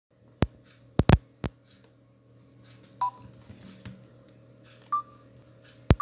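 Key beeps of a Samsung C3322 keypad phone as its menus are stepped through: short single beeps about two seconds apart. Several loud sharp clicks come in the first second and a half and again just before the end.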